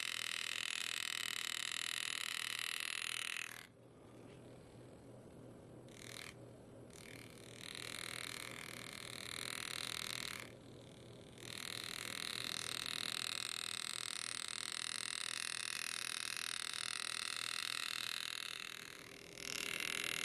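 Powered engraving handpiece driving a graver into the metal of a pocket watch, buzzing steadily as it cuts the background around the letters. It stops about three and a half seconds in, gives a short spell, resumes, pauses briefly near the middle and runs on until just before the end.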